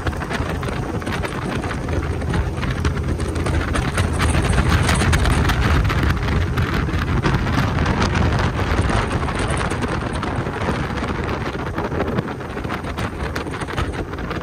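Fishing boat's motor running at speed, with heavy wind buffeting the microphone; the noise cuts off suddenly at the end.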